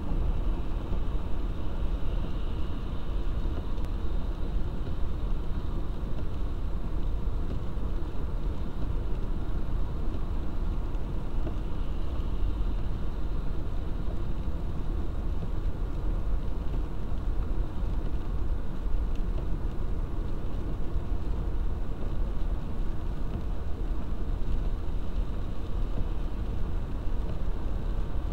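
Car driving on a rain-wet road, heard from inside the cabin: a steady, even rumble of engine and tyres, strongest in the low end.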